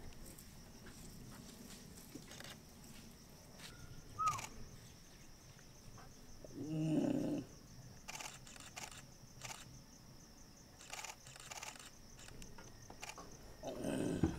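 Steady high insect chorus in dry forest, with scattered sharp clicks and a short chirp about four seconds in. A brief low-pitched call sounds about seven seconds in and again near the end.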